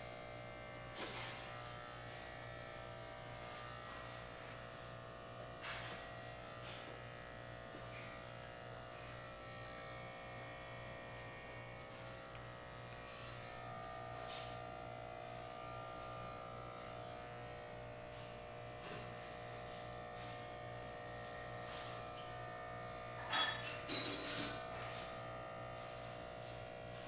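Electric hair clippers running with a steady buzz as a head is shaved down to stubble. A couple of sharp clicks early on, and a cluster of louder clicks near the end.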